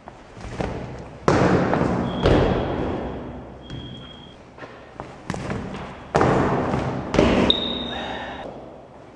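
Sneakers stomping and sliding on a tiled hallway floor: about six heavy thuds that echo down the corridor, and two drawn-out rubber squeaks, around two seconds and seven seconds in.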